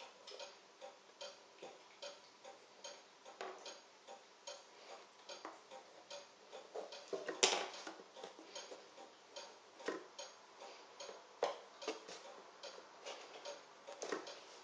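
Faint steady ticking, about two ticks a second, with louder clicks and taps of wax crayons being handled and pressed down onto a canvas; the loudest tap comes about halfway through.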